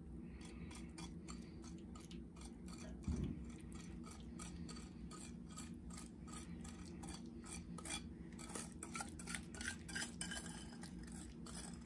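Utensil scraping and clicking against a ceramic mixing bowl as a thick butter and brown sugar syrup is poured and scraped out into a loaf pan. There is a soft thump about three seconds in, and the clicks come more often in the second half.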